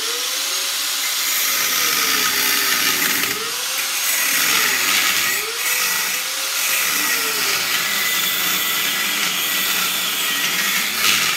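Small corded grinder running and grinding the steel weld seam of a microwave oven transformer, a steady loud grinding hiss. The motor's pitch sags and recovers several times as the wheel bites into the weld.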